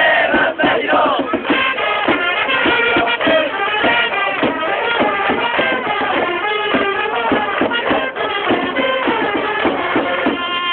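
Japanese baseball cheering section's trumpets and drums playing a player's cheer song, with held, loud brass notes over a steady drumbeat and a crowd of fans singing along.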